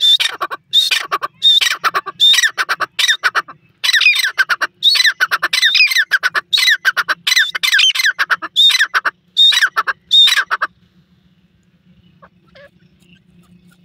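Grey francolin calling: a loud series of harsh, rapidly repeated call notes that stops about eleven seconds in.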